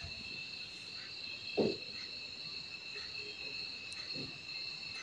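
Steady high-pitched trill of crickets, with a few soft knocks and scrapes of a spatula stirring in a metal kadhai. The clearest knock comes about one and a half seconds in and another near the end.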